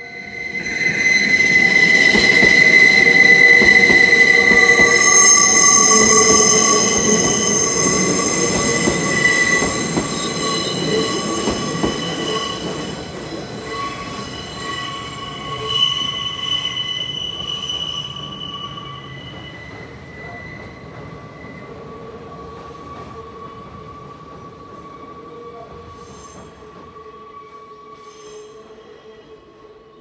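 Nankai Kōya Line train's wheels squealing high on the sharp curve at a level crossing, several shrill tones over the rumble of the train, loud from about a second in and fading away over the second half. A level-crossing bell keeps ringing underneath.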